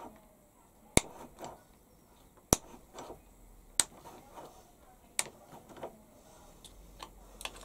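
A steel Allen key clinking against the grub screws of a lathe compound slide as they are turned: about five sharp metallic clicks spaced a second or more apart, with faint handling rustle between.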